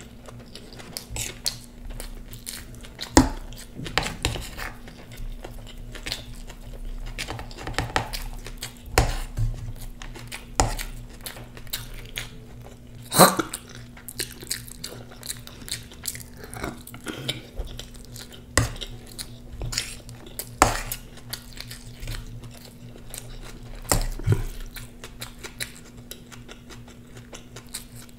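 Close-up eating sounds: chewing and crunching of food, with irregular sharp clinks and knocks of utensils against dishes, over a steady low hum.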